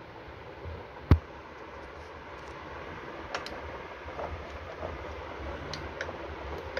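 Faint clicks and ticks from a hand-cranked test stand with a digital force gauge as its crank wheel is worked, over a low steady hum. One sharp, loud click comes about a second in.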